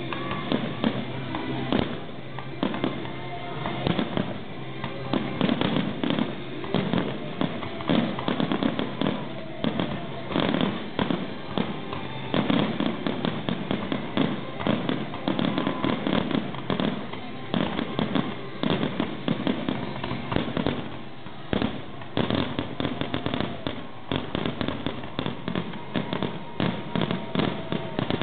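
Aerial fireworks display: shells bursting one after another in a dense, continuous barrage of bangs and crackle, several a second, with no pause.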